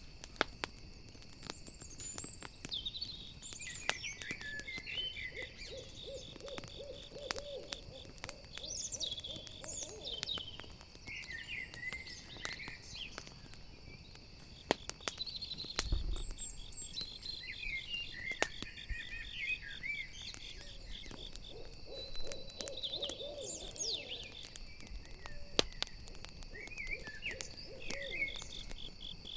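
Night forest ambience: an owl hooting in two long runs, one about five seconds in and one past twenty seconds, over the sharp crackle and pops of a campfire and a steady pulsing chirr of crickets, with short high chirps scattered through.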